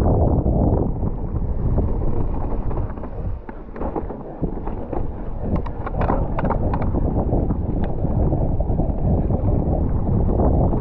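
Wind rushing over the camera microphone and the rumble of a mountain bike's tyres on dirt singletrack at speed, easing briefly about three seconds in, with a scatter of sharp clicks and rattles from the bike a little past the middle.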